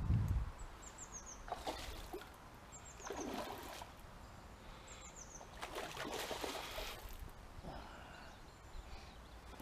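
A hooked trout splashing at the surface in several short bursts, with a small bird calling repeatedly in quick falling chirps. A low wind rumble on the microphone fades in the first half second.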